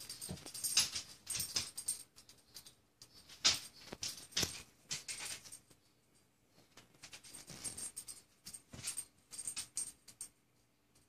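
Dog collar tags jingling and clicking in short rattling bursts as the dogs move about, in three spells of about two seconds each.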